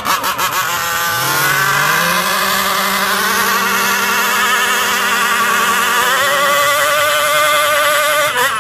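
Small two-stroke gas engine of a large-scale RC car revving up about a second in and held at high, steady revs for several seconds, its pitch shifting slightly near the end before it cuts off.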